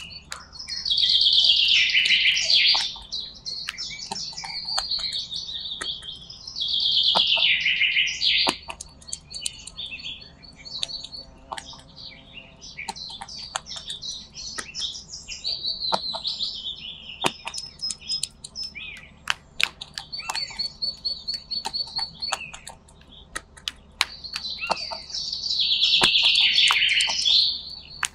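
High bird-like chirping and trilling that swells into three loud, dense bursts of a few seconds each (about a second in, around seven seconds in, and near the end), with quieter chirps between and sharp clicks scattered throughout.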